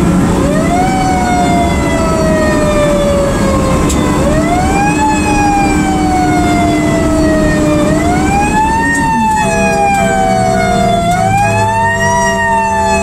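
Fire engine siren wailing, heard from inside the truck's cab. Its pitch climbs quickly and then sinks slowly, about four times, over the truck's engine running underneath.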